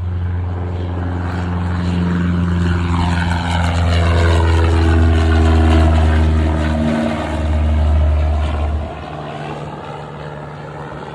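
Propeller airplane passing close by, its engine drone growing louder and then falling in pitch as it goes past, dropping off sharply near the end.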